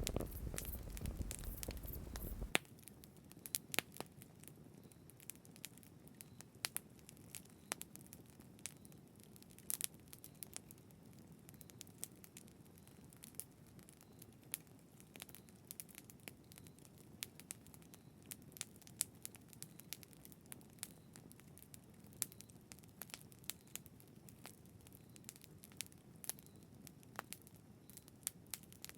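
Wood campfire crackling, with irregular sharp pops scattered throughout over a faint steady hiss. A low rumble sits under it for the first couple of seconds and stops suddenly.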